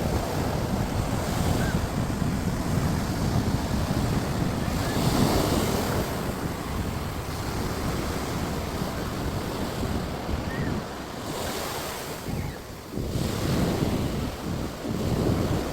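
Rough sea surf breaking and washing on a sandy beach, swelling and easing, with wind buffeting the microphone.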